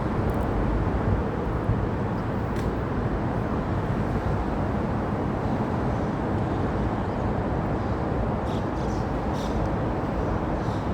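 Steady rumbling railway-platform background noise with a few faint clicks.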